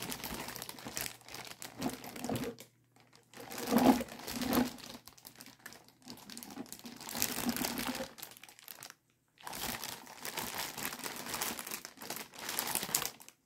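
Clear plastic bag crinkling as it is handled and turned in the hands, in irregular bursts with two short pauses.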